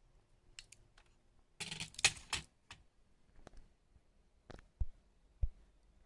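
Laptop motherboard being handled and lifted out of its plastic chassis: a cluster of clicks and rattles about two seconds in, then a few single sharp clicks and taps.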